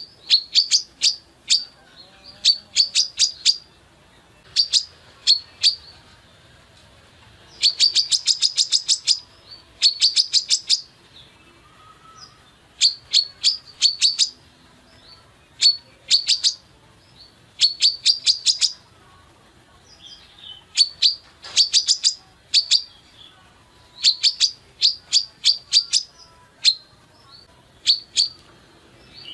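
Female sunbird (kolibri kelapa) singing in rapid bursts of short, sharp, high-pitched chirps, several notes at a time, repeated about once a second with brief pauses.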